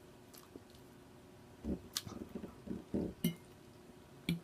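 Close-miked eating of chicken and noodles: a couple of seconds of wet chewing and mouth smacking starting about a second and a half in, with a few sharp clinks of a utensil against the dish.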